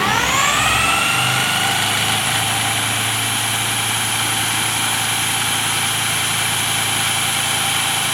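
Motor-driven test rig spinning a 3D-printed trigger disk: its whine rises quickly over about two seconds as it comes up to speed, then holds a steady pitch at test speed.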